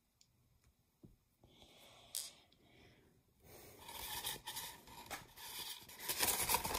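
Rustling handling noise with scattered small clicks and knocks as items and packaging are moved about. It starts as a few isolated clicks and builds into a denser rustling from about halfway, loudest near the end.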